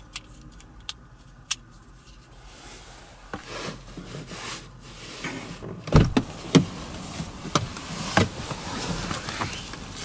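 A few small clicks and rustling, then a car door shutting with a heavy thud about six seconds in. A second thud follows, then a run of lighter knocks.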